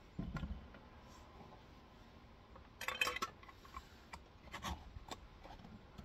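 A glass jar packed with cabbage and brine is being handled and shaken to work the air out. There is a dull knock near the start, then a cluster of glassy clinks and knocks about three seconds in, and a few more sharp knocks near the end.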